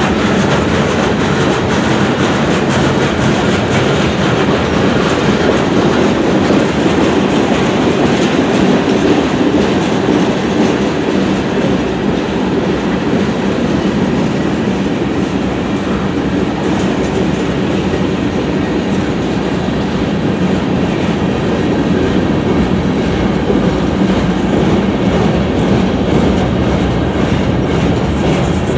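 Freight cars of a manifest freight train rolling past close by: a steady, loud rumble of steel wheels on rail with the clatter and clicking of the wheels over the track.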